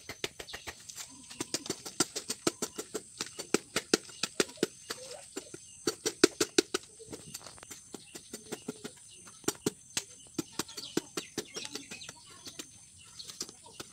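Knife blade chopping and hacking into a jackfruit, quick irregular knocks several a second with short pauses.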